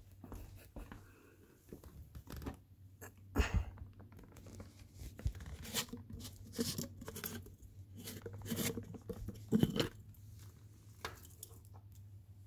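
A glass jar of sunflower seeds is opened and a chipmunk digs into them, giving irregular rustling, crunching and clicking of seeds against glass. There are two louder crackles, about three and a half and nine and a half seconds in.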